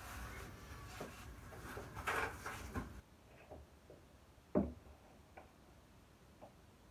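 Scraping and rustling as plastic buckets are handled, then a single knock about halfway through as a bucket is set down on the floor.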